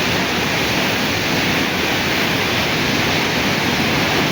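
Steady rushing of the Yamuna river's floodwater.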